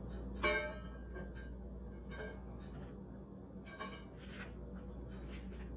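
Stainless steel steamer pot clinking and ringing as pieces of green banana are dropped into it, loudest about half a second in, with a few softer knocks after. A steady low hum runs underneath.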